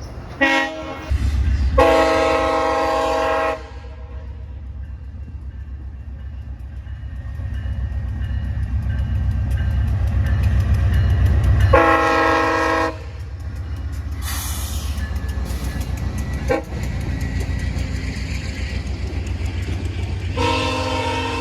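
Locomotive air horn sounding several blasts over the low rumble of a train: a short blast and a longer one near the start, another short one about twelve seconds in, and a long one beginning near the end. Between the blasts the wheels click steadily over the rail joints as the train rolls by.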